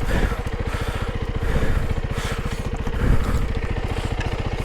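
Single-cylinder engine of a Honda CRF300L Rally dual-sport motorcycle running at low revs in a steady, even beat, with a few brief surges of throttle while the bike is picked slowly over rough ground.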